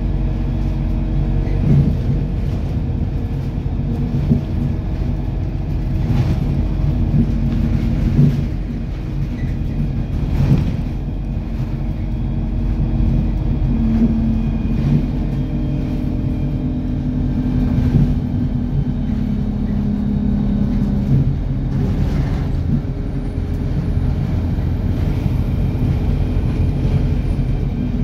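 Steady road and engine noise heard from inside a moving vehicle: a loud low rumble with a hum that swells and fades, and a few short knocks from bumps in the road.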